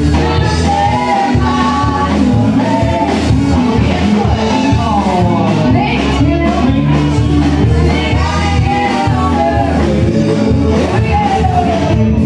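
Live band playing a song through the PA: a sung lead vocal over electric guitar, bass and a steady drum beat.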